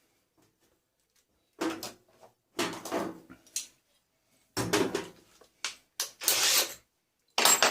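Steel parts from a stripped tumble dryer being handled, scraped and set down in a series of separate clattering bursts.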